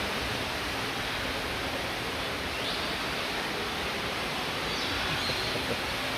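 Steady rushing noise of falling water, with a couple of faint, short high chirps from birds.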